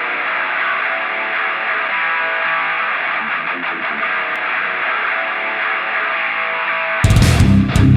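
Intro music: guitar music that sounds filtered and thin, then about seven seconds in it opens up suddenly into full, loud distorted rock guitar with a heavy low end.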